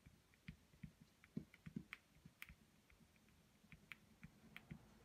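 Faint, irregular ticks and short scratches of a beeswax crayon worked over paper in small strokes, with a few slightly stronger soft taps about a second and a half in.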